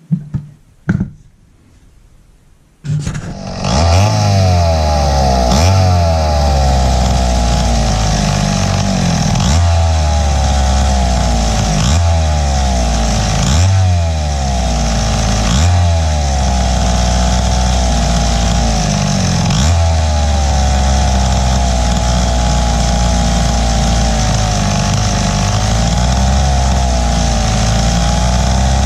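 A 77 cc Wright C-50 two-stroke chainsaw engine catches about three seconds in after a few short bursts, then runs loudly and unevenly, its speed sagging and picking back up every couple of seconds. It is running poorly on its unrebuilt carburettor.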